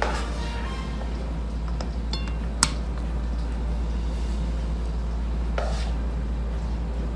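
Serving utensils clinking and scraping against a pot and plate. The sharpest clink comes about two and a half seconds in, and there are a few lighter taps and a couple of brief scrapes, over a steady low hum.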